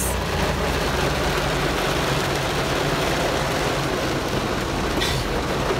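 Steady rain on a moving car's roof and windows, with the car's engine and road noise underneath, heard from inside the cabin.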